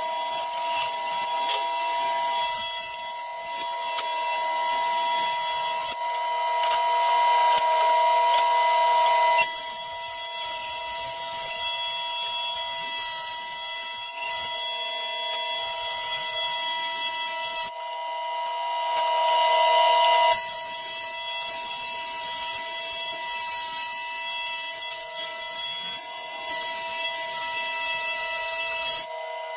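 Thickness planer running and planing hickory boards, a loud steady high-pitched whine. It grows louder and quieter by turns as the wood passes through, then cuts off just before the end.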